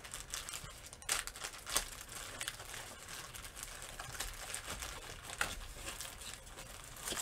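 A diamond painting canvas crinkling and rustling as it is handled and rolled up by hand, with irregular crackles and a few sharper ones.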